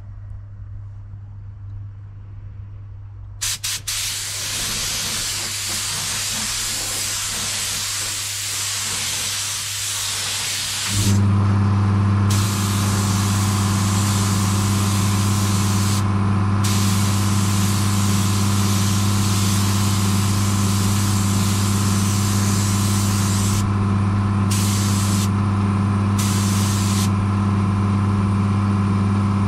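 Spray gun hissing as clear coat goes onto the car's bumper, starting a few seconds in, with a few brief pauses. About eleven seconds in, an air compressor motor starts and runs with a steady hum under the spray.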